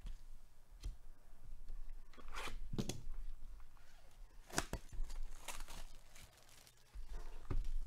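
Clear plastic shrink wrap being torn and pulled off a cardboard trading card box, in several short rips and crinkles, with the box handled in between.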